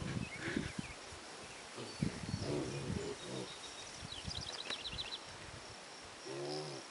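Piglets grunting now and then, short low grunts a couple of seconds in and again near the end, as they root through tall grass. A brief rapid high chirping sounds about four and a half seconds in.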